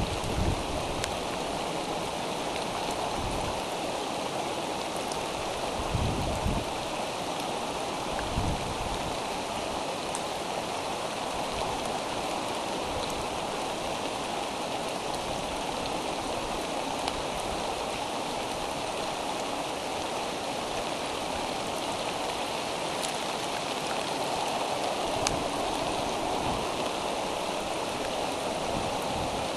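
Steady rain falling, an even hiss, with a few brief low thumps in the first nine seconds or so.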